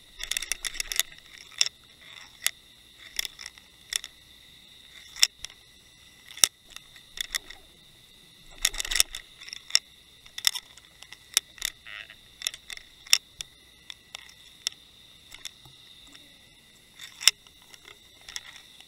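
Irregular sharp clicks and knocks, some in quick clusters, picked up through an underwater camera's waterproof housing as the camera and bucktail rig bounce along the sea bottom. A faint steady high whine runs underneath.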